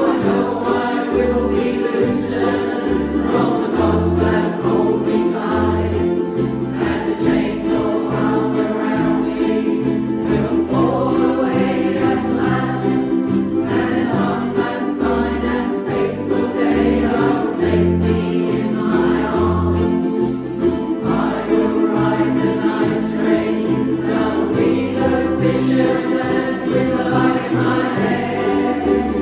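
A live band playing a song: several voices singing together over strummed strings and a bass line.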